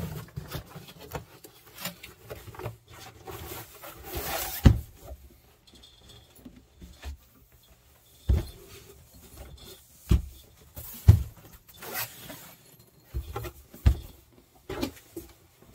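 A cardboard helmet box being opened and unpacked by hand: packaging rustling, with several sharp thumps as the box and its contents are moved and set down on the desk.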